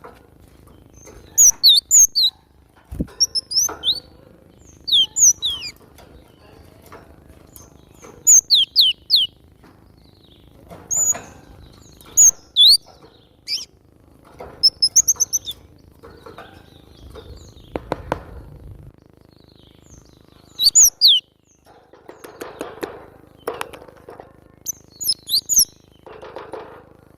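Cinereous tit (glatik batu) singing: short, rapid phrases of sharp, high, downward-sweeping notes that repeat every second or two. Fainter rustling comes between the phrases.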